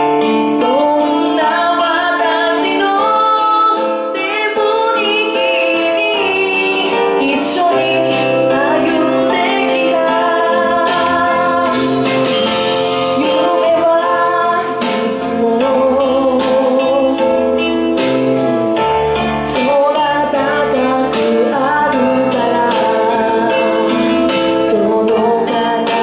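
A woman singing a song into a handheld microphone over instrumental accompaniment. A steady beat of about two strokes a second comes in about eleven seconds in.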